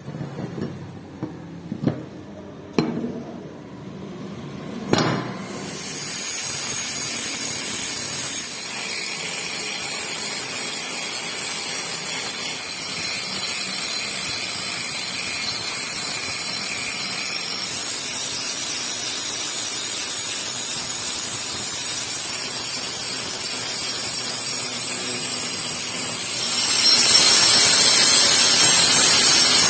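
A few sharp metal knocks, then steady grinding on the steel cleaver blank, which gets louder and brighter near the end.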